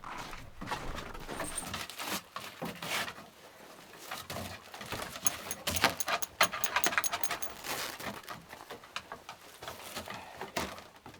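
Siberian huskies moving about on a cabin's wooden floor: claws clicking, rustling, and light jingling of collar or harness metal, busiest in the middle.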